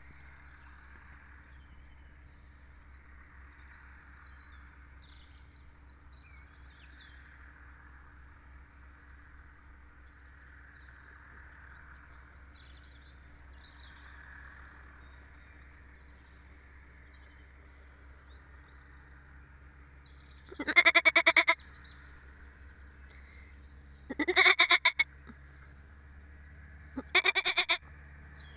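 Sheep bleating three times in the second half, each a quavering call about a second long.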